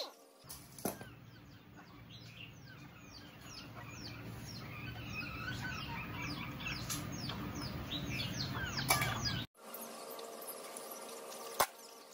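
Small birds chirping rapidly, many short high chirps each falling in pitch, over a low hum. The sound cuts off abruptly about nine and a half seconds in, and a few sharp clicks follow near the end.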